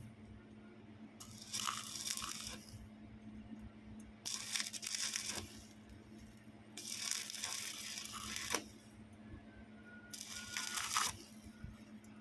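Welding arc crackling in four short bursts, each a second or two long, the pattern of tack welds being laid on a tubing joint, over a faint steady hum.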